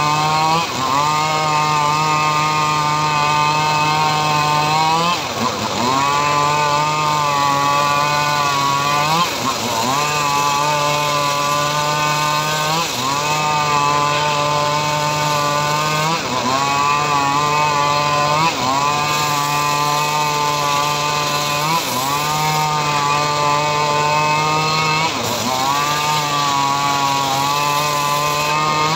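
Homemade circular sawmill with a large blade cutting mahogany: a loud, steady whining hum whose pitch sags and then climbs back about every three to four seconds as the wood loads the blade.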